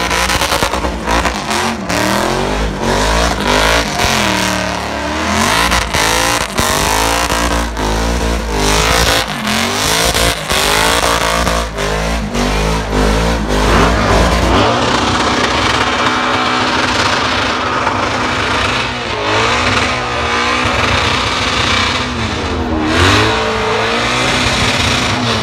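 V8 burnout car's engine revving hard as its rear tyres spin and squeal on the pad, the engine note swinging up and down. In the last several seconds it settles lower, with a few separate rev blips as the car rolls out of the smoke.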